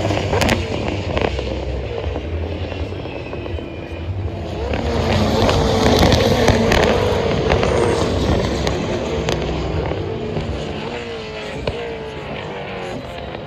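Supercars race cars with 5.0-litre V8 engines running at speed past the track, engine notes rising and falling as they go by, the loudest pass near the middle.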